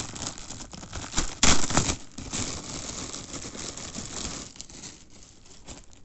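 Clear plastic poly bag crinkling as hands pull a T-shirt out of it, loudest about a second and a half in, then dying away near the end.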